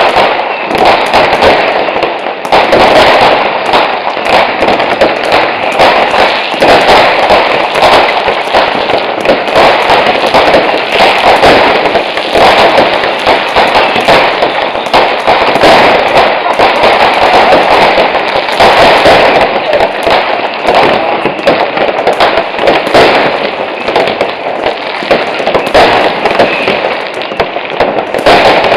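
Dense fireworks barrage: firecrackers and rockets going off in rapid, near-continuous loud bangs and crackling, with no pause.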